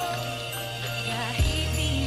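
Background Christmas music with jingle bells over a bass line, with a kick-drum thump about one and a half seconds in.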